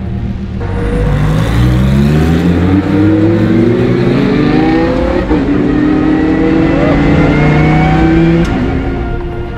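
Race car engine at full throttle, its pitch climbing steadily for several seconds, with an upshift about halfway through and the engine note dropping away near the end.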